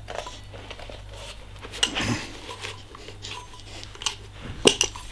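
Scattered metal clinks and knocks from hand work on an electric scooter's rear wheel and tyre, with a louder knock about two seconds in and a sharp double knock near the end, over a steady low hum.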